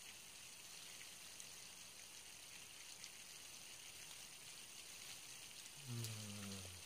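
Faint steady hiss with a few small ticks, then near the end a man's low hummed 'mmm' of enjoyment while eating, lasting about a second and falling slightly in pitch.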